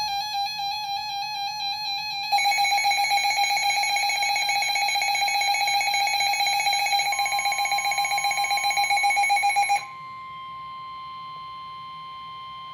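A weather alert radio's alarm sounds as a harsh, rapidly pulsing buzz. It gets louder about two seconds in and cuts off about ten seconds in. Under it is NOAA Weather Radio's steady 1050 Hz warning alert tone, which carries on alone after the alarm stops: the signal that a warning message is about to be read.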